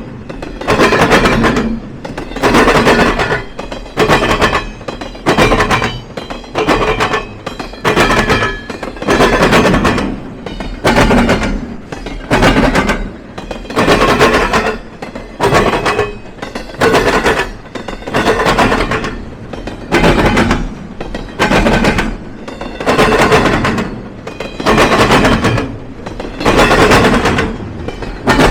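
Freight train wheels pounding over a railroad diamond crossing: a loud double bang about every second and a half as each car's trucks hit the gaps in the crossing.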